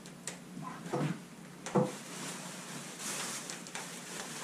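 Rummaging through a chest freezer: frozen packages knocking against each other three times, then plastic bags rustling.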